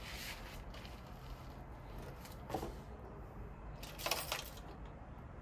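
Handling noises: a few brief clinks and rattles, the loudest a short jangle about four seconds in. No engine runs.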